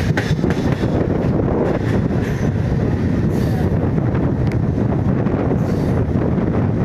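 Steady running noise of a moving MEMU electric train, with wind buffeting the microphone.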